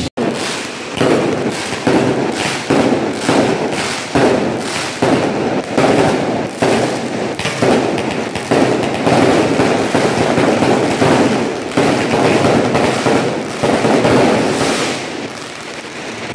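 Fireworks going off in a loud, fast string of bangs and crackles, several a second without a break, easing slightly near the end.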